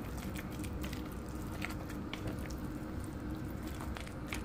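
Spatula mashing and stirring wet minced-pork filling in a plastic bowl: irregular squishing and slapping with small clicks against the bowl, over a steady low hum.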